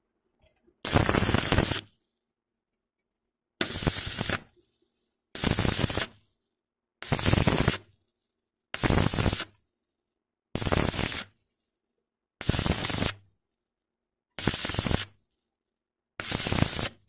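Stick (electric arc) welding on light square tubing, done in short stitches: the arc crackles for under a second, then breaks off, about nine times at roughly two-second intervals.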